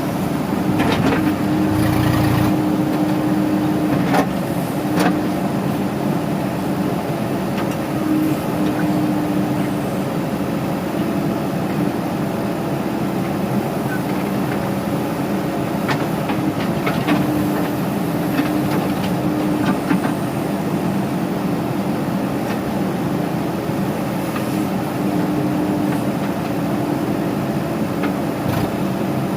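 Diesel engine of a JCB 3DX backhoe loader running steadily as it works, with a humming tone that comes and goes and a few sharp knocks.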